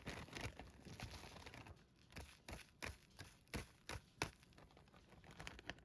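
Clear plastic zip-top bag of dry breading mix being shaken to blend in the seasoning: a faint run of irregular plastic crinkles and rustles.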